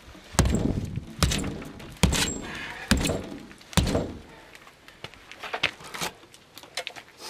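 SOG VoodooHawk tomahawk chopping into a door: five hard blows a little under a second apart, each a sharp thunk with a short rough tail as the head bites into the door. A few lighter knocks follow near the end.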